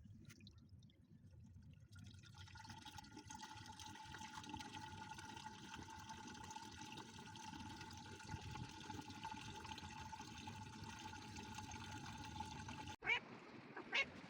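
Washing machine drain pump running with water rushing through it: a steady whine with overtones over a watery hiss. It starts about two seconds in and cuts off abruptly near the end, followed by two short, louder sounds.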